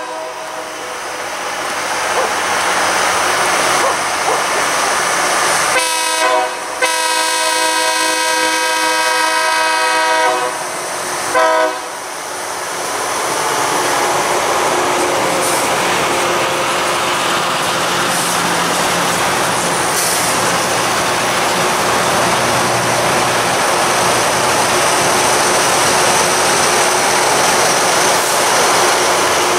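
Loram rail grinder train sounding its horn: a blast ending about half a second in, then a short blast, a long blast of about three and a half seconds and a last short blast. From about 12 s on the train passes close by with a loud, steady rushing noise of its grinding stones working the rail.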